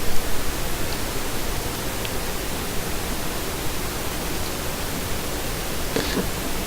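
A steady, even hiss, with a faint tick about two seconds in.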